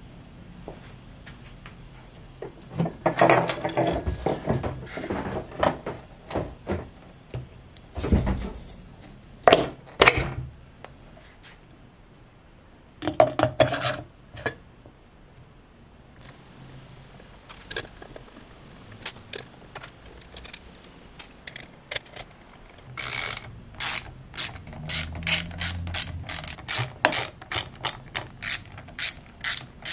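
Metal clunks and scrapes as the hub motor's side cover is handled and seated. From about two-thirds of the way in, a ratcheting hand tool clicks rapidly and evenly, about three or four clicks a second, as the cover bolts are tightened.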